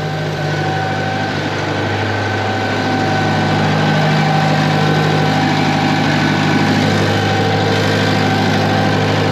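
The Massey Ferguson MF711 skid steer's air-cooled Wisconsin V4 engine running steadily, getting a little louder about three seconds in.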